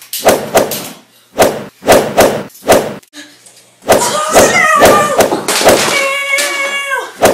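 Mock gunfire: several quick volleys of sharp pops in the first three seconds. About four seconds in, a child starts yelling, ending in a long, steady cry.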